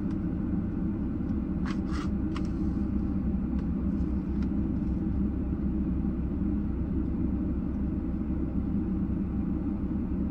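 Steady low hum of a car idling, heard from inside the cabin, with a few faint clicks about two seconds in.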